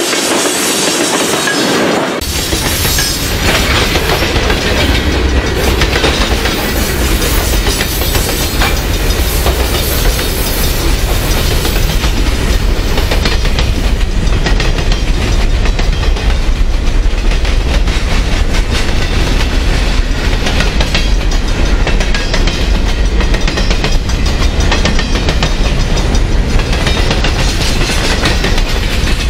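Freight cars of a long manifest train, many of them empty woodchip gondolas, rolling past close by: steel wheels clicking steadily over the rail joints over a continuous rolling rumble. About two seconds in, a heavy deep rumble comes in and stays.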